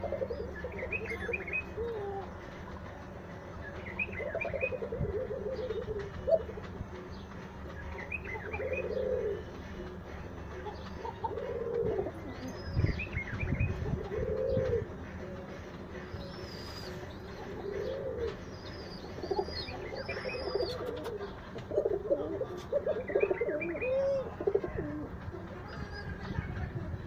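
Domestic pigeons cooing over and over, a low coo every second or two, with short higher chirps mixed in and a couple of dull thumps near the middle.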